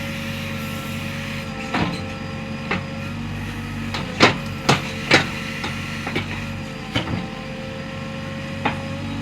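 JCB backhoe loader's diesel engine running steadily while the digging arm and bucket work, with sharp knocks and clanks scattered through it, several in quick succession around the middle.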